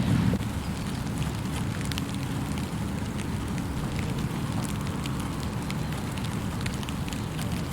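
Steady rain falling, with many scattered drip ticks over a low rumble that eases slightly about half a second in.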